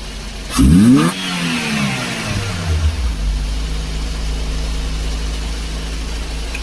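Daihatsu Dabbab engine flaring up sharply about half a second in, then dropping back over a couple of seconds and settling into a steady idle. The idle is still slightly high, as the throttle body's butterfly valve is not yet closing fully.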